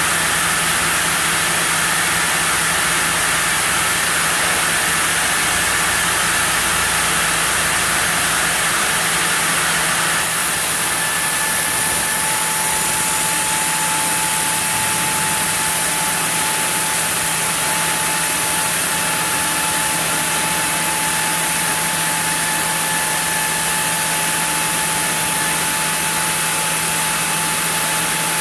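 Sawmill saw milling a block of zelkova, running steadily with a low hum and a loud hiss. About ten seconds in the hiss brightens and a thin higher whine comes in.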